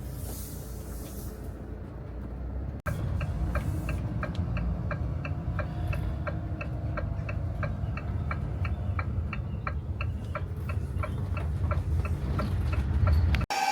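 Motorhome engine running with a low rumble heard from inside the cab. After a sudden cut about three seconds in, a steady ticking of just under three ticks a second runs over it, typical of the turn-signal indicator.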